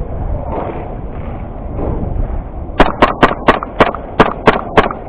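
Airsoft gun firing a quick series of single shots, about nine sharp cracks at roughly three a second, starting a little under three seconds in, over a low rumble.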